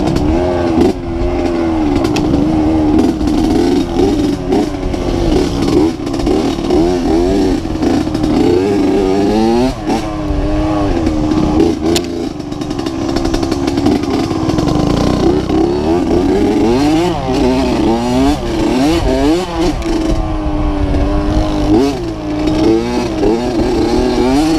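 Dirt bike engine being ridden hard along a trail, its pitch rising and falling over and over as the throttle is worked.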